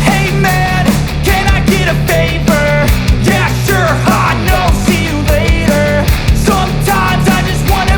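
Background music: a melody over a steady bass line and a regular beat.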